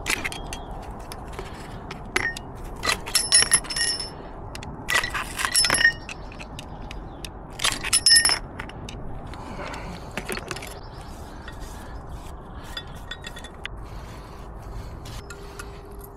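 Steel camshaft bearing caps and bearing shells clinking against each other and the bench as the old shells are swapped for new ones. Sharp metallic clinks that ring briefly come in three loud clusters in the first half, then lighter, scattered ticks.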